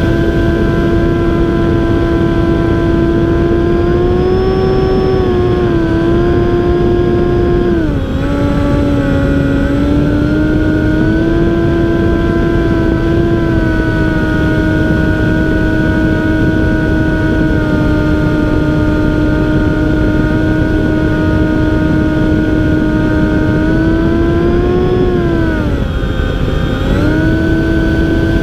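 RC airplane's motor and propeller, heard from a camera on the plane in flight: a steady, loud drone over a rush of noise, with the pitch dropping briefly about eight seconds in and again near the end as the throttle is eased and brought back.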